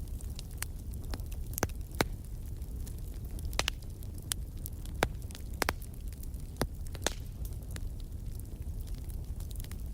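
Wood fire burning in a fireplace: a steady low rumble of flame with scattered sharp crackles and pops, the loudest about two and five seconds in.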